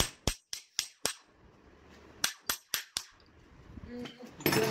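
Quick, even hammer strikes on metal, about four a second: five, a pause of about a second, then four more, most likely tapping the new alternator bearing into place. A short, louder sound near the end.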